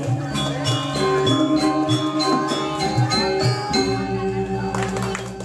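Balinese gamelan playing: bronze metallophones struck in quick runs over kendang drum strokes. About four seconds in the running strokes stop and a deep held tone rings on with a slow, even pulse, the closing of the piece.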